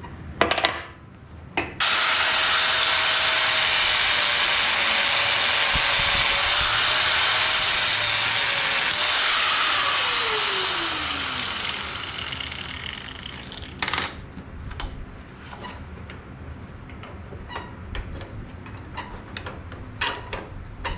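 Corded electric angle grinder cutting a small tab off a steel bracket. It runs at a steady whine with a loud grinding hiss for about eight seconds, then is switched off and its whine falls as the disc spins down. A few metal clinks and knocks come before and after.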